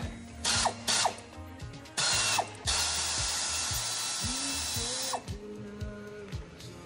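Power tool running in a few short bursts, then in one steady run of about two and a half seconds that stops suddenly with a falling whine. Background music plays underneath.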